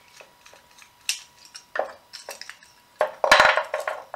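Light metallic clicks, then a louder clatter of clinking metal about three seconds in, as a cartridge fuse is worked free of the metal contact clips of a service cutout fuse carrier with a screwdriver and by hand.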